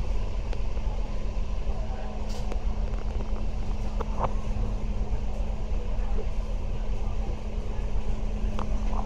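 Bus running, heard from inside the cabin: a steady low engine rumble with a constant hum and a few light rattles.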